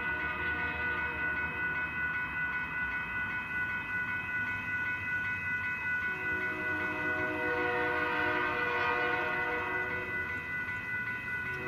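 Grade-crossing warning bell ringing steadily. About halfway through, the air horn of the approaching lead locomotive, an EMD SD40-3, starts sounding a held chord for the crossing, with a short break near the end.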